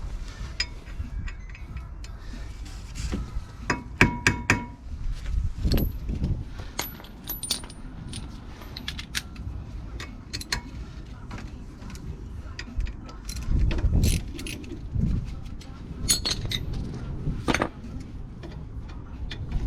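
Metal tools and brake parts clinking and knocking: scattered sharp clicks, some with a short metallic ring, among dull handling thumps, as the front brake disc's T40 retaining screw is undone and the disc taken off.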